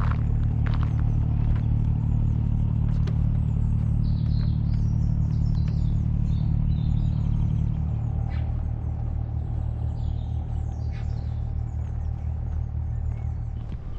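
An engine running steadily with a low hum, easing down about eight seconds in, while small birds chirp over it.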